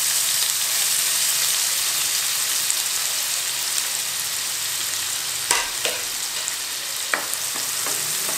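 Chopped onions sizzling in hot oil, a steady frying hiss, with a few light knocks a little past halfway and a wooden spatula starting to stir them near the end.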